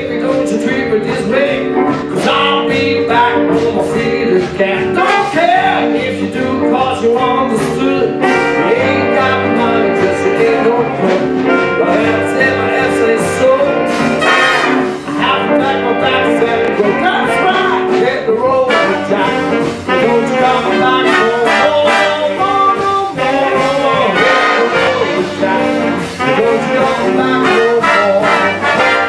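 Live big band playing jazz, the brass section of trumpets and trombones with saxophones over bass guitar and drums, while a man sings into a microphone at times.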